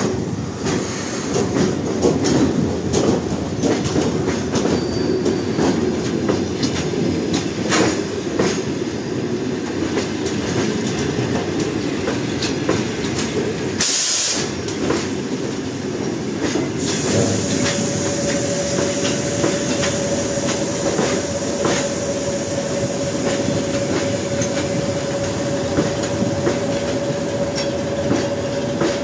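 Passenger train arriving slowly, its carriages rolling past with wheels clicking over the rail joints. From a little past halfway a steady squeal sets in and holds as the train slows for the stop.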